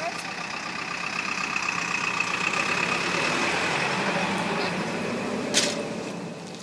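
A motor vehicle's engine running steadily, growing louder over the first few seconds and fading away near the end. A sharp knock sounds about five and a half seconds in.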